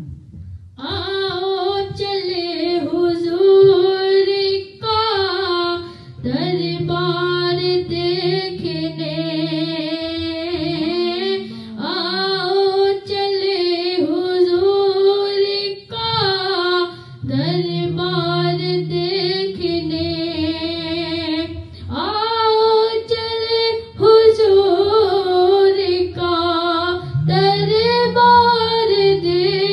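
A high voice singing an Urdu naat in long, ornamented melodic phrases, with short pauses for breath every few seconds.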